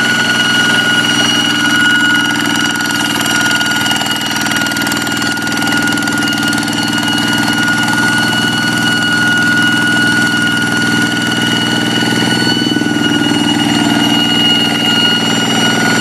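Hand tractor's Kubota single-cylinder diesel engine running steadily under a loud high-pitched whine that holds one pitch and wavers briefly about three-quarters of the way through.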